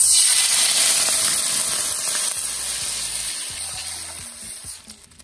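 Water poured into a hot wok of garlic fried in oil: a sudden loud hiss and sizzle as it hits the hot pan, fading slowly over the next few seconds as the pour goes on.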